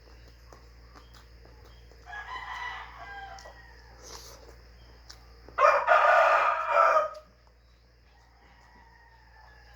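Rooster crowing twice: a fainter crow about two seconds in, then a louder, longer crow of about a second and a half near the middle.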